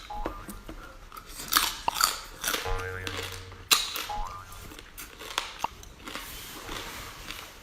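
Close-miked chewing and biting of food, with sharp crunches and wet mouth clicks coming irregularly.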